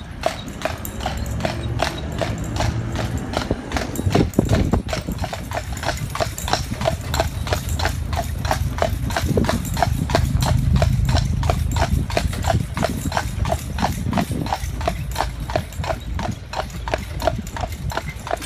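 A Clydesdale's hooves clip-clopping on a paved road as it pulls a carriage, about three even hoof-falls a second, over a low rumble.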